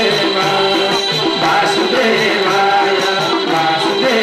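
Live devotional bhajan music: singing with instrumental accompaniment, a melody of held notes stepping up and down.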